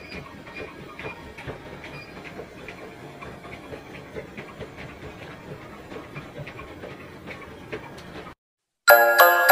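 Gym treadmills running, with a quick, even series of thuds from feet and paws landing on the moving belts. Near the end the sound cuts off and loud plucked-string music starts.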